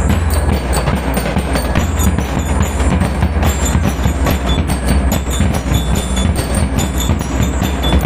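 Lyre and drum band playing: bell lyres ring short high notes over a dense, steady beat of snare and bass drums.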